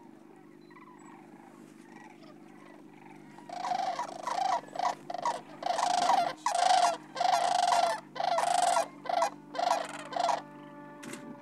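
Sandhill cranes calling: a series of loud, rolling, rattling bugle calls that starts about three seconds in and repeats in bursts with short gaps, stopping shortly before the end.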